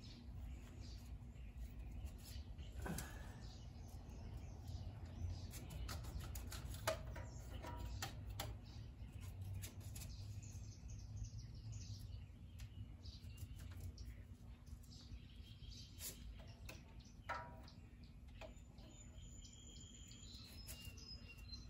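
Filter wrench turning a spin-on hydraulic filter snug on a stump grinder: scattered faint clicks and scrapes over a low steady rumble. Birds chirp briefly near the end.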